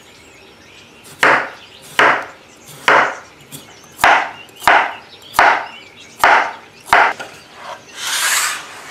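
Kitchen knife slicing potatoes on a cutting board: about eight sharp chops, roughly one every three-quarters of a second, followed near the end by a short scraping sound.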